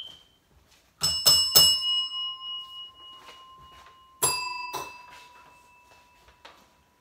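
Tabletop service bell struck three times in quick succession, then twice more about three seconds later, each ding ringing out and fading slowly.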